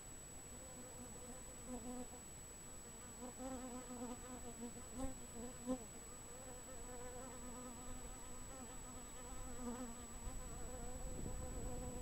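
A flying insect buzzing: a wavering hum that swells and fades as it moves about. A low rumble builds near the end.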